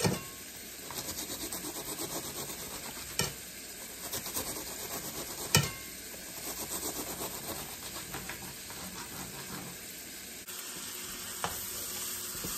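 Ground beef sizzling as it browns in a frying pan, with a kitchen knife crunching through a head of iceberg lettuce and a few sharp clicks of the blade against the plate. Near the end the sizzle turns steadier and a little louder as a spatula stirs the beef in the pan.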